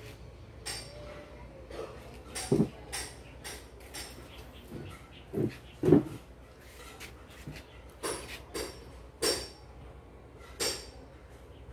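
About a dozen irregular light clinks and knocks of hard objects, some ringing and some dull thuds, the loudest about halfway through.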